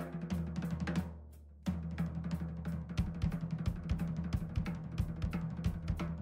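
Sugar Percussion stave-built drum kit played in a groove, close-miked: snare, bass drum, hi-hat and cymbals. It stops briefly about a second in and starts again, with busier bass-drum strokes in the second half, over low sustained tones.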